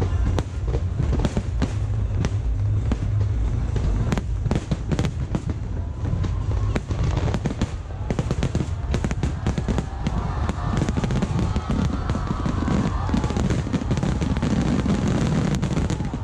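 Aerial fireworks display: a dense run of sharp crackles and bangs over a continuous deep rumble from shells bursting.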